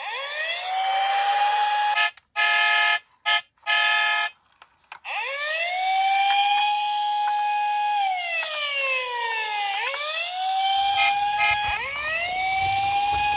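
Wailing police siren: the tone rises, holds, slides down and climbs again in slow cycles, cut off briefly several times about two to five seconds in. A low rumble joins under it in the last few seconds.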